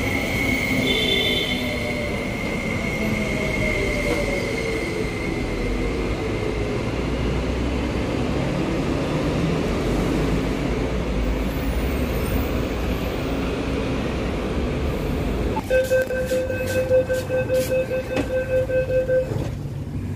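MTR East Rail SP1900 electric train pulling into the platform and braking to a stop, its motor whine falling in pitch over the first several seconds. About three-quarters of the way through, a rapid run of electronic door warning beeps sounds for a few seconds.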